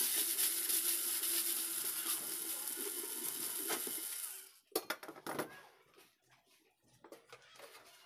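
A small motor runs with a loud, steady hiss and a low hum for about four and a half seconds, then cuts off, followed by a few sharp knocks.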